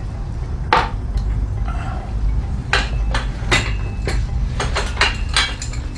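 Metal tools and motorcycle parts clinking and clanking: a series of separate sharp knocks and clinks during rear-end disassembly, over a steady low hum.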